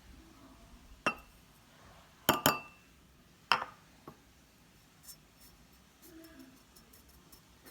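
Glass-like hard objects clinking: four sharp knocks in the first few seconds, two of them close together, some with a short ring, then only faint small ticks.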